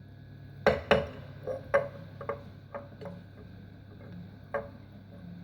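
Garlic-stuffed figs being packed into a glass jar: a series of about nine light knocks and clinks against the glass at an uneven pace, the two loudest about a second in.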